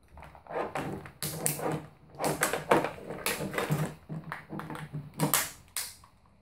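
Stiff clear plastic blister packaging crackling as it is cut with scissors and pulled open by hand, in an irregular run of sharp crinkles and snips.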